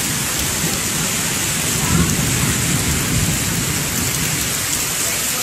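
Heavy rain pouring steadily, with a low rumble swelling about two seconds in and fading over the next second or so.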